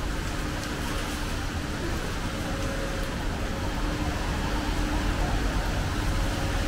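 Steady road traffic and street noise, with a faint steady hum under it.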